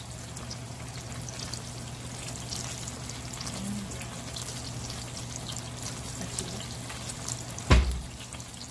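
Sole fillets coated in egg sizzling in olive oil in a nonstick frying pan: a steady hiss with many fine crackles, over a low steady hum. One short thump near the end.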